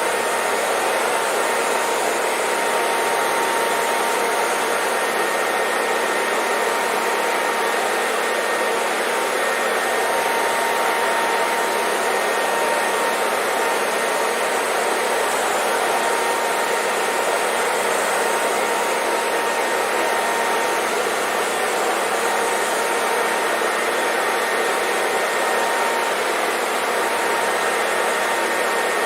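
Electric hair dryer running continuously: a steady, even rush of air with a faint constant whine from its motor.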